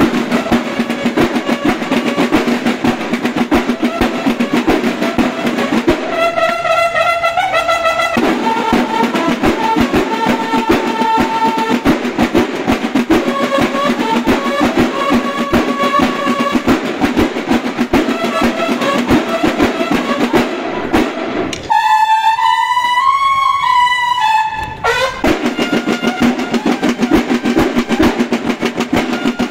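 Banda de guerra snare drum line playing a fast, dense cadence, with bugles sounding calls over it. The drums drop out twice, for about two seconds near the start and for about three seconds about three quarters of the way through, leaving the bugles playing alone.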